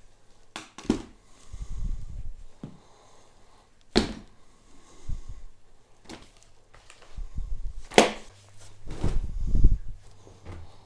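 Handling and movement noises in a small room: several sharp knocks, the loudest about 4 and 8 seconds in, with low thudding rumbles between.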